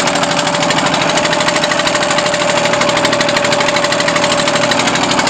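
Small engine, probably a generator's, running steadily at an even speed: a fast, even knocking beat with a steady whine over it.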